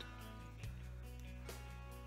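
Quiet background music with sustained low notes, the bass note changing about two-thirds of a second in.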